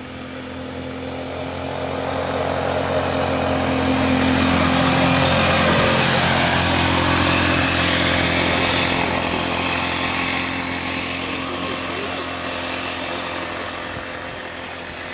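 Can-Am ATV engine running at high revs as it approaches and passes by, growing louder for about five seconds, peaking around the middle, then fading away.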